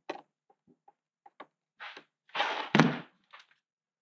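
Handling noise from a taped plastic mold on a work surface: a few light taps and a rustle, then a thunk nearly three seconds in.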